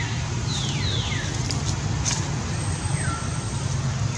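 A baby monkey's short, high-pitched cries, each falling in pitch: two close together about half a second in and a lower one about three seconds in, over a steady low rumble with a couple of light clicks.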